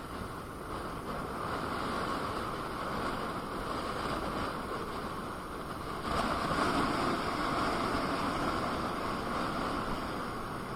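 Steady rush of wind and tyre noise while riding a KingSong KS18S electric unicycle, getting louder about six seconds in.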